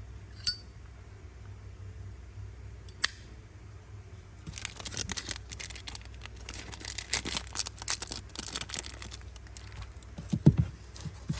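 Handling noise from objects being moved about by hand: two sharp clicks, then about five seconds of crinkly rustling, and a few thumps near the end.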